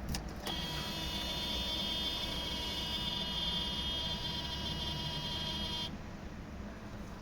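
A steady electrical buzz with a high whine, starting about half a second in and cutting off suddenly about five seconds later.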